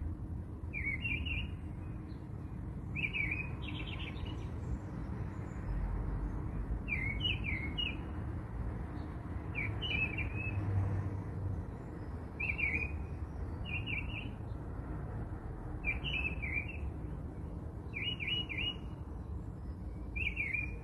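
A small bird chirping, short calls every second or two, over a steady low rumble.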